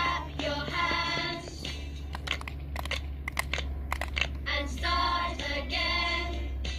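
A group of children singing a song together. There are two sung phrases, one at the start and one about five seconds in, with a string of sharp clicks in the gap between them.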